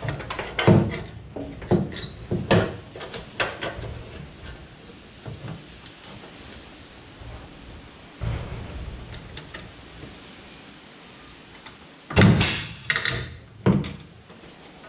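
Metal knocks and clanks from fitting an aluminium bilge pump mount into the boat hull. About twelve seconds in, a pneumatic pop rivet gun fires with a loud hiss lasting about a second, then a shorter burst.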